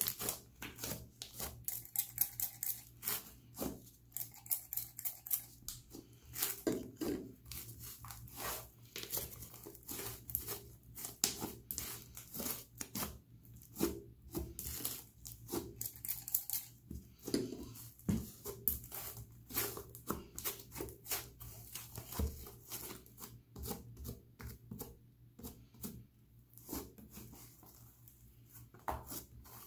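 Thick, air-filled slime being squeezed, poked and stretched by hand: a dense, irregular run of sticky clicks, crackles and small pops as air worked into it bursts, thinning out near the end.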